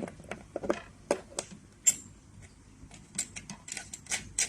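Irregular small clicks and knocks of hard plastic parts being handled as the handle's connector is plugged into the machine, the sharpest about two seconds in and several more close together near the end.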